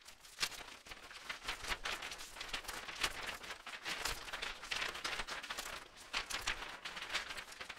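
Sound effects of a channel logo intro: a dense, irregular run of sharp, noisy hits with no voice and no steady tune.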